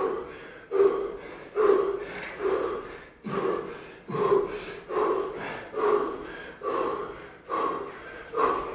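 A man breathing hard and rhythmically under physical strain, one loud forced breath a little under every second, while his partner climbs around his body.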